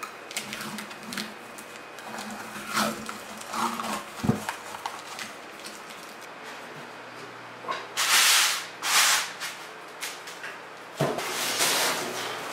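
Green painter's masking tape being pulled off the roll and wrapped around a cast-iron stove door's spring handle: short rasping tears of tape with small handling ticks and crinkles, and louder longer rasping pulls in the second half.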